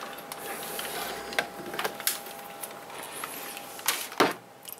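Scattered light clicks and knocks, with a sharper knock about four seconds in, over a faint steady hum.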